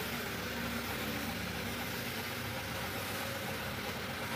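Compressed-air paint spray gun hissing steadily as it sprays paint onto a car's front bumper, with a low motor hum underneath.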